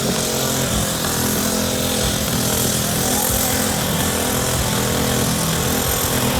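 Car engine held at high revs during a burnout, its pitch stepping up and down, over a steady hiss of spinning tyres.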